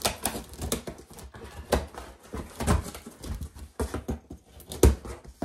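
Scissors cutting through packing tape on a cardboard box and the flaps being pulled open: irregular scraping, rustling and crackling of cardboard and tape with short knocks, the sharpest knock near the end.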